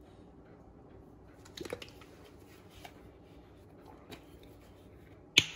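Soft handling noises from a barbecue-sauce bottle being held and moved over a sandwich: a few faint clicks and rustles, then one sharp click near the end.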